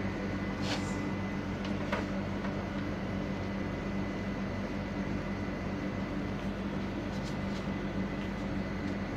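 Steady low electrical hum with a faint high steady tone, and a few light clicks from small parts being handled.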